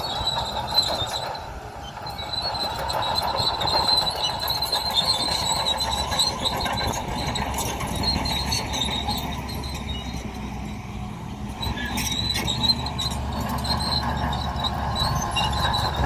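Crawler bulldozer working: a steady low engine rumble under a wavering high squeal from the steel tracks, with a couple of sharp metal knocks about twelve seconds in.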